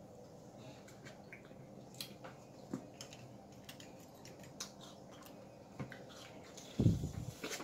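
Quiet eating sounds from a seafood boil: scattered small clicks and soft smacking from mouths, shells and utensils, with a single dull thump near the end, the loudest sound.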